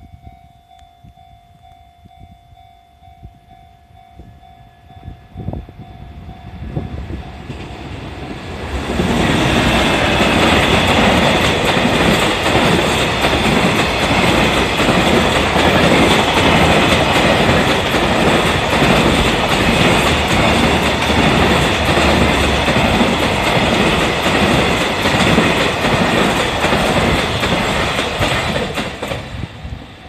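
A level-crossing warning bell rings with a steady tone while an EF210 electric locomotive-hauled container freight train comes near, its wheel knocks growing from about five seconds in. From about nine seconds in, the wagons run past loudly with a continuous clickety-clack of wheels over the rails for some twenty seconds, dying away near the end.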